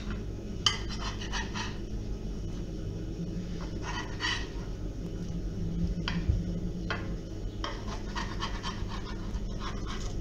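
A kitchen utensil scraping and tapping on a non-stick metal baking tray as chicken-and-courgette cutlets are turned over: a series of short scrapes and clicks over a steady low hum.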